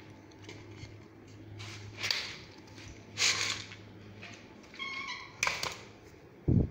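A cat meows about five seconds in, a short call falling slightly in pitch. Before it come two short hissy noises, and near the end a dull thump.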